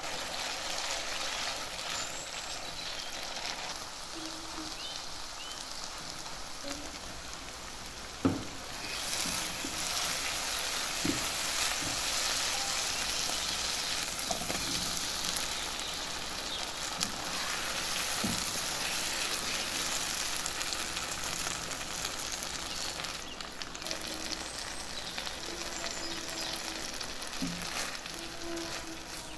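Masala frying and sizzling in hot oil in a non-stick kadhai while it is stirred with a silicone spatula. The sizzle turns brighter and louder from about nine seconds to about twenty-three seconds. There is one sharp knock about eight seconds in, and a few lighter knocks later.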